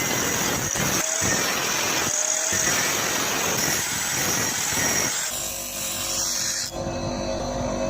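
A machine or power tool running with a loud, even noise and a steady high whine. About five seconds in, this gives way to a lower steady hum made of several even tones.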